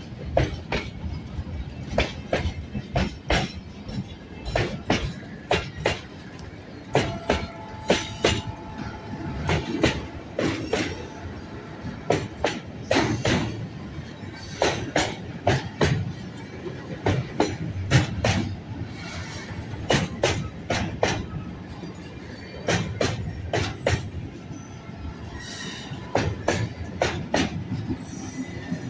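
Loaded freight wagons rolling slowly past close by: repeated clanks as the wheels cross rail joints, in irregular groups, over a steady low rumble. A thin wheel squeal comes in for a few seconds near the middle.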